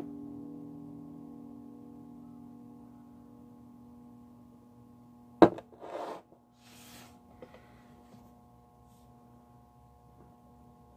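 The last guitar chord of a song ringing out and slowly fading. About five and a half seconds in, a sharp knock and a couple of brief rustles as hands handle the recording phone or camera.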